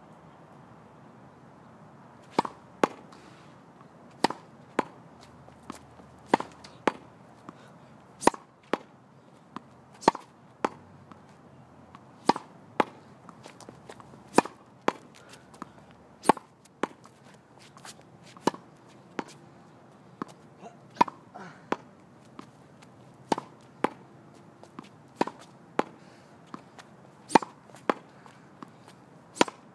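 A tennis ball rallied off a wall with a racket: sharp pops from the racket strikes, the ball hitting the wall and bouncing on asphalt. They come mostly in pairs about half a second apart, a pair roughly every two seconds, in an unbroken rally.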